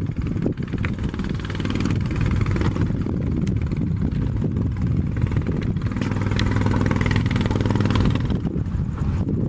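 Boat engine running steadily as a low drone over a rushing hiss of wind and water. The engine hum grows louder about six seconds in and eases again near the end.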